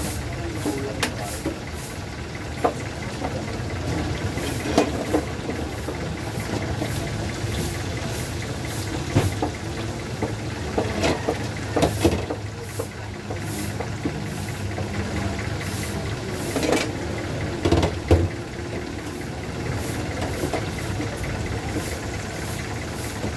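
A steady low engine-like rumble runs underneath scattered knocks and clinks, typical of dishes and serving utensils being handled.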